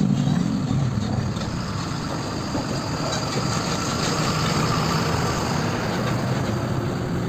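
Truck engine running steadily, a deep rumble with a steady hiss over it, laid in as a sound effect.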